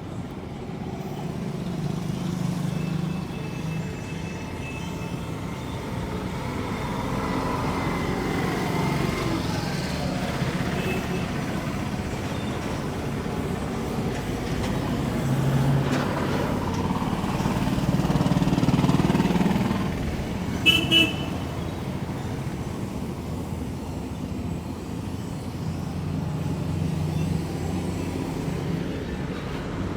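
Street traffic: motor vehicles running and passing, one growing louder just before two-thirds of the way through, then a vehicle horn tooting twice in quick succession.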